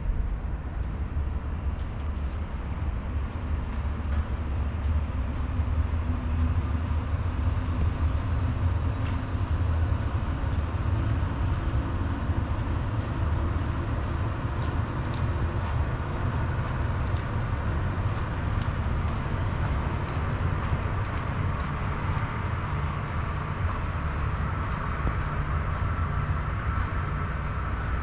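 Steady low rumble of Boeing 737 jet engines from airliners taxiing on the apron, heard through the terminal glass. A higher hiss builds over the last third.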